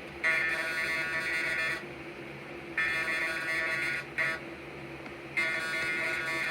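Emergency Alert System header tones: three buzzy bursts of digital data, each about a second and a half long, with a pause of about a second between them.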